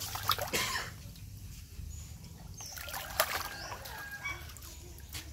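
Water splashing and sloshing in a plastic tub as a young monkey thrashes and paddles about in it, loudest in bursts near the start and about three seconds in.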